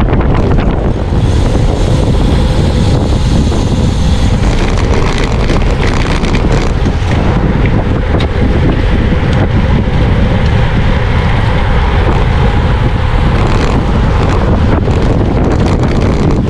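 Steady, heavy wind rushing over the microphone of a camera riding on a road bike at race speed in a pack of cyclists.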